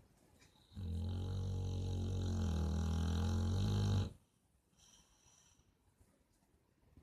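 One long snore, steady and low-pitched, starting about a second in and stopping abruptly after about three seconds.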